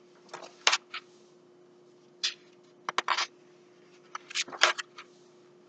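Pages of a picture book being turned and handled: a series of short paper rustles and flicks, several in quick succession just after three seconds in and again after four seconds, over a faint steady hum.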